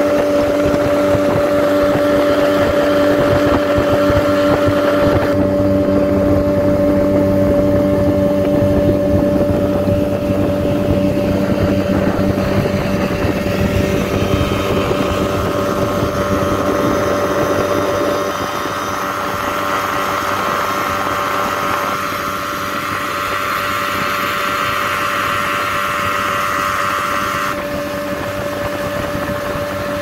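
Motorboat engine running at a steady speed with a constant hum, over the rush of water and wind noise. The tone of the noise shifts abruptly a few times.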